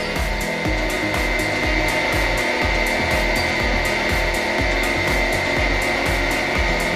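Hydraulic press crushing an object with continuous grinding and rubbing, over a steady, evenly spaced beat.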